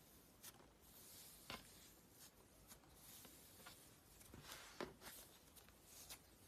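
Slime being handled, poked and squeezed by hand, giving faint, irregular sticky clicks and small crackles, with a sharper pop about a second and a half in and another a little before the end.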